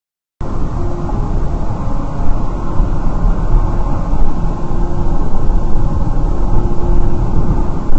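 Dash cam recording of a car on the move: loud, steady road and engine noise in the cabin, cutting in abruptly about half a second in, with a faint steady hum underneath.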